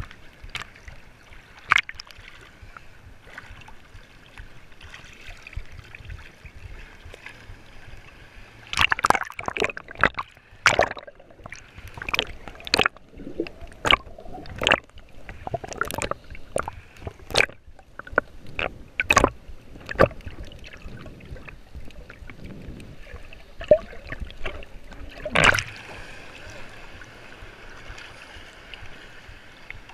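Seawater lapping and splashing against a waterproof action camera held at the surface. In the middle there is a run of sharp splashes and knocks as it dips under and back out, with one more loud splash a few seconds before the end.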